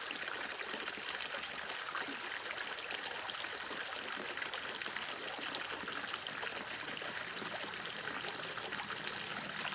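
Small rocky stream running and trickling over stones: a steady rush of water.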